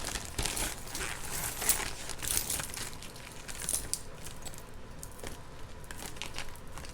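A small plastic bag crinkling as it is handled and crumpled, with a few sharp clicks. It is busiest in the first couple of seconds, then sparser.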